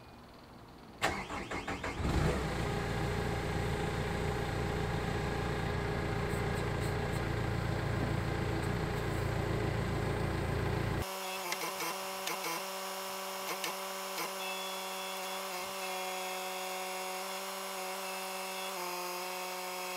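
Manitou compact telehandler's diesel engine starting about a second in and running under load. About halfway through, the engine rumble gives way abruptly to a quieter hum of steady tones that shift pitch near the end.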